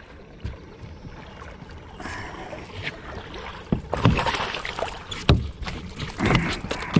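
Knocks and bumps on a kayak while a just-landed small northern pike is handled aboard. After a quieter first two seconds the sounds come irregularly, with a few louder thumps in the second half.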